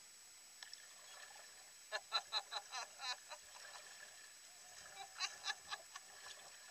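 Kayak paddle strokes on calm sea water: the blades dipping and splashing as the kayak is paddled, with two runs of quick, short splashy sounds, one about two seconds in and another about five seconds in.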